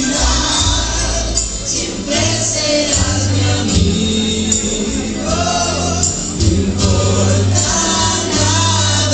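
Music: a pop song's backing track with a steady bass line, with a group of voices singing along.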